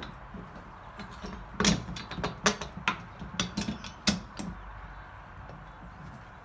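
Metal clinks and knocks as a bolt is passed through the wheelbarrow's leg and frame holes, about ten sharp taps in a burst during the first half.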